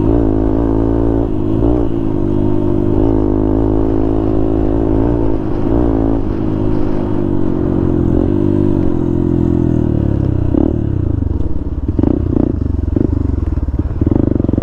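Motorcycle engine running under way, its note rising and falling with the throttle, with rattling knocks over the last few seconds.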